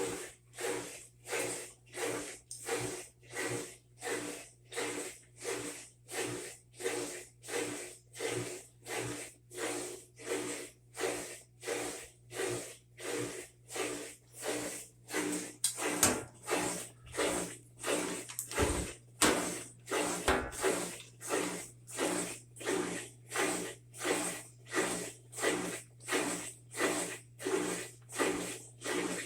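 Whirlpool WTW4800XQ2 top-load washer running, with an even swishing pulse about one and a half times a second over a steady low hum, and a few sharper knocks just past halfway.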